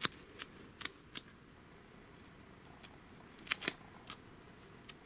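Hands handling duct tape over a thermocouple on a thin aluminium heat-sink plate: a few scattered short crackles and taps, the loudest a quick pair about three and a half seconds in.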